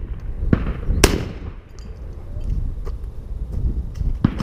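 Shotgun shots: a weaker crack about half a second in, a louder one with a trailing echo about a second in, and a third near the end, over a steady low rumble.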